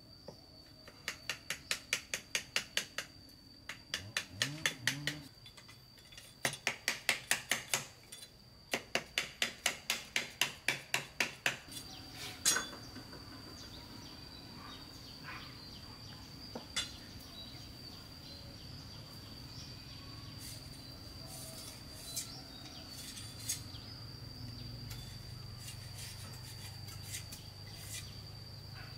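Quick runs of sharp striking knocks, about five a second, in four bursts over the first twelve seconds: hand-tool work such as hammering. After that comes one louder strike and then only a few scattered knocks. A steady high insect drone runs underneath throughout.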